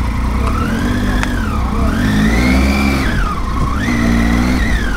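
Triumph Tiger 800's three-cylinder engine under way, its pitch rising and falling three times with the throttle, over a steady low rumble.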